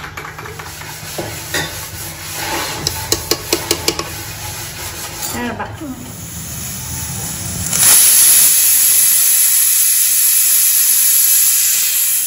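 Metal clinks of an aluminium pressure cooker being handled over a low hum. From about eight seconds in, a loud, steady, high hiss of the pressure cooker venting steam through its whistle, which signals that the cooker is up to pressure.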